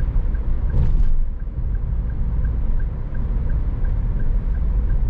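Road and engine rumble inside a moving car's cabin, with the turn signal ticking about three times a second ahead of a U-turn.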